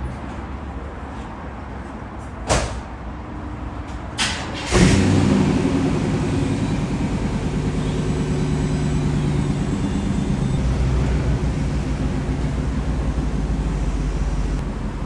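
Chevrolet Tahoe engine running, with two sharp knocks about two seconds apart; from about five seconds in the engine is louder and stays steady.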